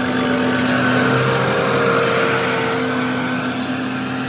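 Combine harvester running at full speed as it approaches, its engine steady with a slight shift in pitch about a second in, loudest around the middle.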